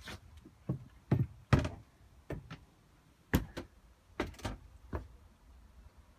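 An irregular series of about a dozen knocks and thuds, several coming in quick pairs, over about five seconds.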